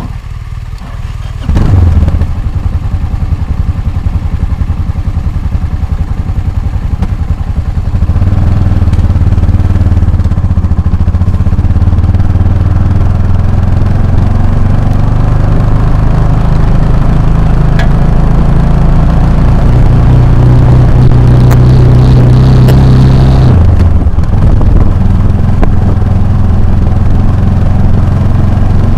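Motorcycle engine riding off-road. It picks up sharply about a second and a half in, then pulls harder with its pitch slowly climbing, drops suddenly about 23 seconds in, and pulls on again.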